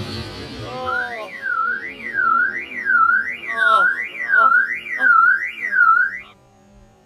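The dying tail of a Tannerite explosion, then a warbling alarm-like tone that sweeps up and down about seven times, roughly one and a half sweeps a second, and cuts off suddenly about six seconds in.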